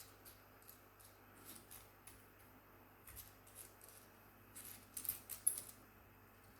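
Faint, light clicking and ticking from small sewing accessories being handled, with a short cluster of sharper clicks about five seconds in.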